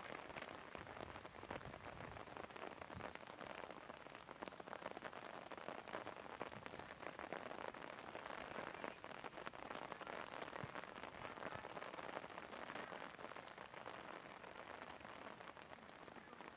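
Steady patter of rain: a dense, even crackle of small drops with no pauses.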